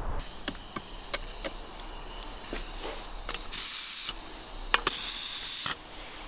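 Bed of hot charcoal in a barbecue grill crackling with sharp ticks over a steady hiss, broken by two louder bursts of hissing about three and a half and five seconds in.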